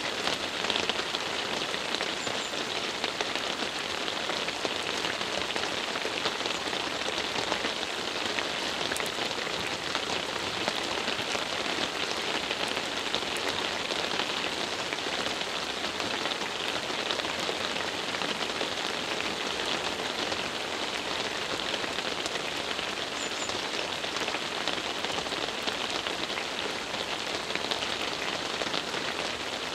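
Steady rain falling on an asphalt road and roadside vegetation, an even hiss without a break.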